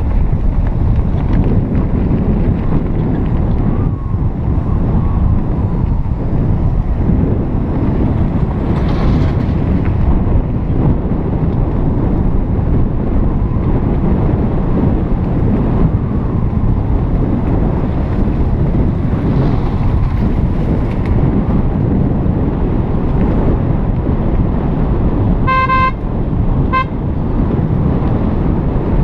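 Steady low rumble of wind on the microphone with the road noise of a car driving slowly along a concrete lane. Near the end a vehicle horn toots twice, briefly, about a second apart.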